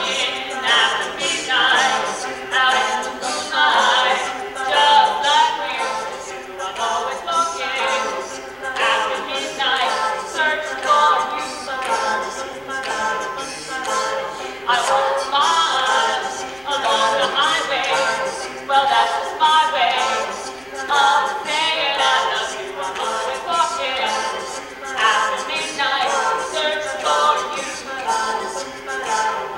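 Mixed a cappella vocal group of men and women singing a song in harmony, unaccompanied and without a break.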